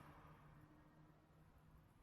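A passing motor vehicle's engine hum fading away, dying out just before the end and leaving near silence.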